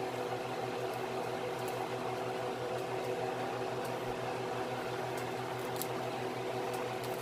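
A steady motor hum, like a kitchen appliance or fan running, with a few faint light clicks as the mussels in the pan are handled.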